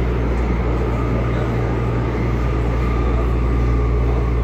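São Paulo Metro Fleet G subway train running, heard from inside the car: a steady low rumble that does not let up.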